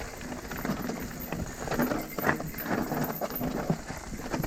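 Irregular knocks and rattles of a mountain bike on a rough trail.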